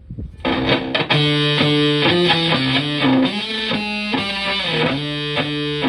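Stratocaster electric guitar through a germanium Fuzzrite-style fuzz pedal and a Fender Twin Reverb-style amp, playing a fuzzed riff of sustained notes. The riff starts about half a second in.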